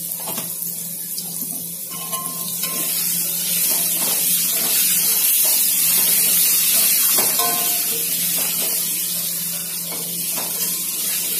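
Potato cubes sizzling in hot oil in an iron kadai, loudest in the middle, while a metal spatula scrapes and knocks against the pan as they are stirred.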